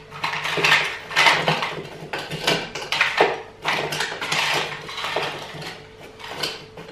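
Frozen mango chunks tipped from a bowl, clattering into a food processor bowl as a run of irregular small knocks.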